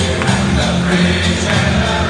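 Upbeat music with a steady beat over a stadium PA, with the crowd singing along.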